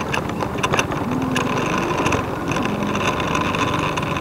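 A vehicle engine running steadily on the move, under a constant rushing noise.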